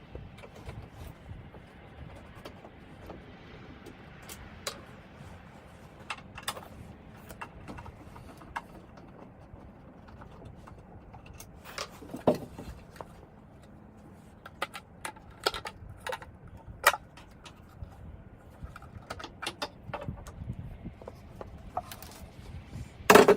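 Scattered clicks, taps and knocks of hand work on a pickup's taillight assembly, with a tool and plastic parts being handled at irregular times.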